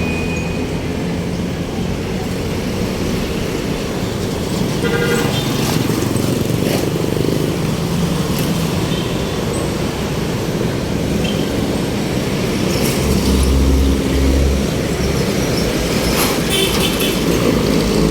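Heavy city street traffic: vehicle engines and road noise running steadily, with short horn toots about five seconds in and again near the end.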